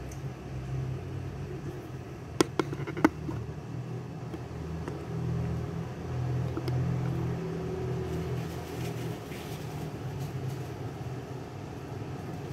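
Kitchen range hood extractor fan running with a steady low hum. Three sharp knocks come between two and three seconds in.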